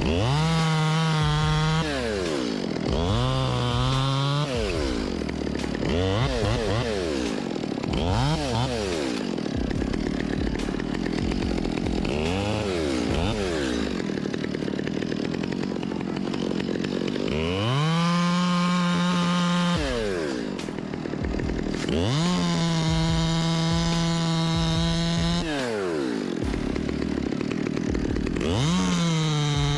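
Chainsaw engine revving repeatedly: several short throttle blips that rise and fall back to idle, then longer runs held at full speed for two to three seconds each.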